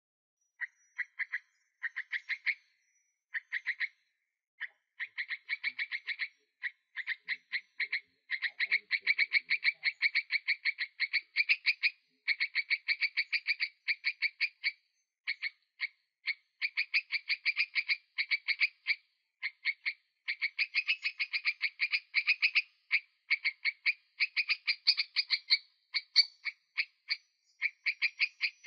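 An animal's rapid pulsed calls, about five to six pulses a second, repeated in runs of a few seconds with short pauses between them.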